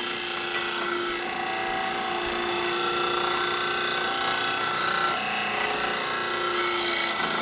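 St. Louis demonstration DC motor with an electromagnet field coil, running on two D-cells: a steady whir with brush-on-commutator hiss. The hiss brightens near the end as the brushes are rotated to shift the commutator timing, which changes the motor's speed.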